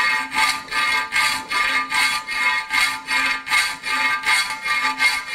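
Half-round hand file pushed across the edge of a steel sheet clamped in a bench vise: repeated rasping strokes, about two a second, each making the sheet ring with a high squeal as the file hollows out the edge.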